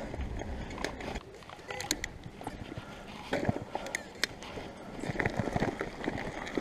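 Bicycle riding, heard from a handlebar-mounted camera: tyres rolling on tarmac and wind on the microphone, with irregular rattles and knocks from the bike over the road surface.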